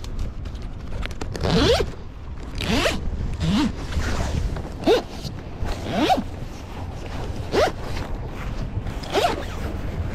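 Long zipper on a canvas mainsail cover being pulled open by hand in about seven short rasping strokes, roughly one every second or so.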